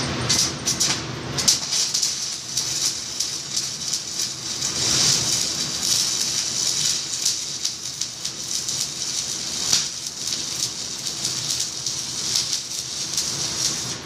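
Electric arc welding: the arc crackles and sputters steadily, full of sharp pops, then cuts off suddenly at the end.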